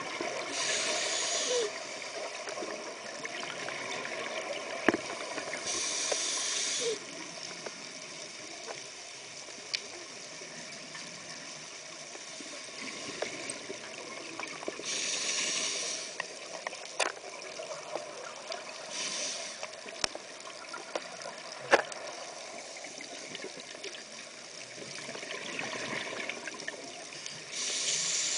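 Scuba diver's exhaled bubbles rushing from the regulator in bursts of hiss about a second long, several seconds apart, heard muffled through an underwater camera housing. A few sharp clicks fall between the breaths.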